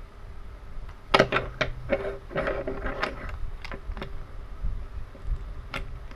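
Wooden toy engines clicking and knocking against each other as they are handled and moved around: a quick run of clacks in the first few seconds and one more near the end, over a low rumble of handling noise.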